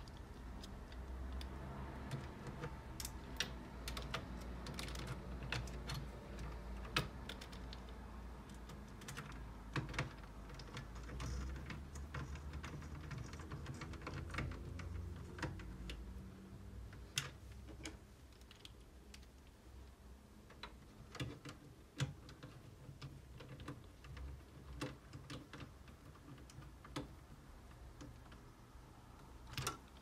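Hand screwdriver driving screws back into the metal hard-drive bracket of an all-in-one PC: scattered small clicks and taps of metal on metal, irregular, over a faint low rumble.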